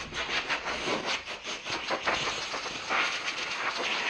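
Quick, repeated hand scrubbing strokes on a vise part, a rasping, hissing sound at several strokes a second, with louder bursts of hiss in the second half.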